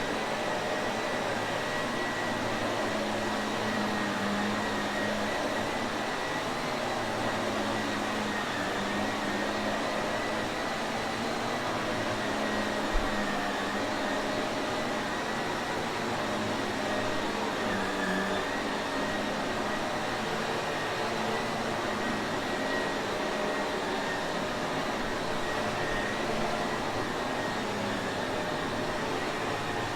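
Shark Navigator vacuum cleaner running steadily: an even rush of air with a constant high motor whine and a low hum. A single faint click comes about halfway through.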